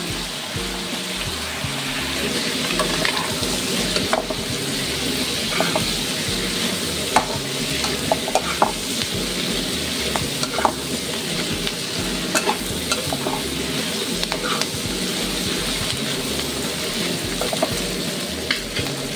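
Boiled pork offal and aromatics sizzling in oil in a wok while being stirred with a metal spoon, a steady frying hiss with scattered sharp clicks and scrapes of the spoon against the pan.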